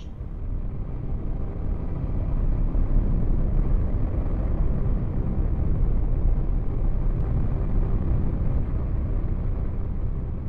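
Steady deep rumbling drone, swelling up over the first couple of seconds and then holding loud and even.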